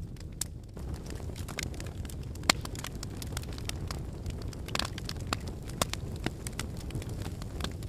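Wood fire crackling in a fireplace: a steady low rustle of flames with irregular sharp snaps and pops, one louder pop about two and a half seconds in.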